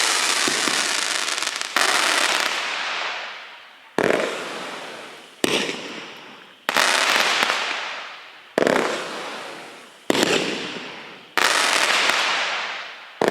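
Skygasm 63-shot 500 g fireworks cake firing: seven sudden bangs at irregular gaps of about one and a half seconds, each with a long noisy tail that fades before the next shot.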